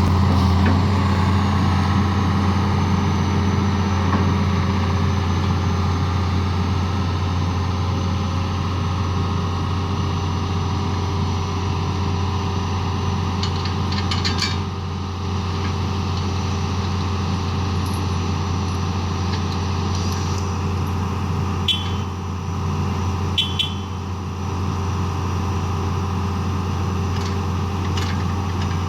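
An engine running steadily at a constant speed with a low, even drone, with a few short light clicks about halfway through and again near the end.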